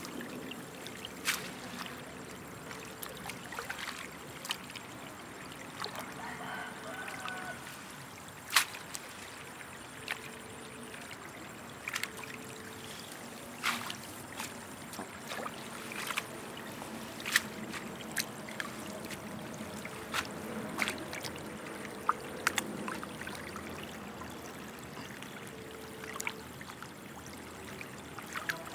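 Water trickling steadily, with many short sharp clicks scattered through it every second or two.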